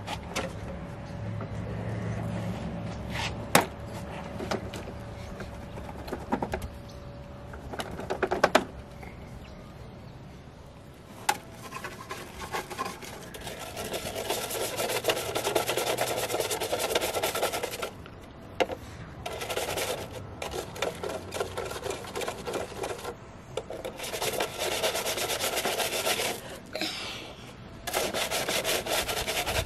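A stiff-bristled hand brush scrubbing back and forth on the plastic body of a toy street sweeper truck, in four bouts of a few seconds each. Before the scrubbing begins there are a few scattered clicks and knocks.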